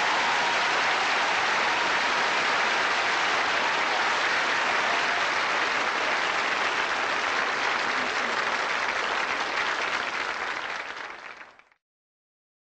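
Audience applauding steadily. The applause fades and cuts off abruptly near the end.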